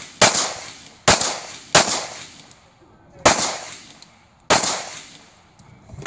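Pistol fired five times at an uneven pace: three shots in quick succession, then two more over the next few seconds. Each sharp crack is followed by a short echoing tail.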